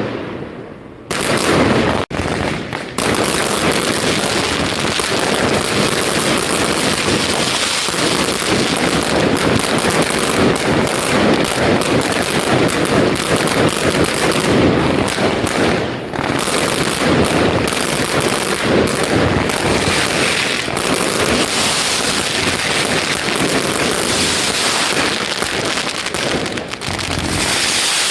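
Fireworks display: a dense, continuous barrage of rapid bangs and crackling, after a brief lull near the start.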